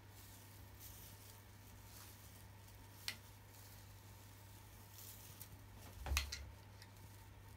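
A cat pouncing on carpet: a soft thud with a brief scuffle of knocks about six seconds in, the loudest moment. One sharp click comes about three seconds in, over a faint steady low hum.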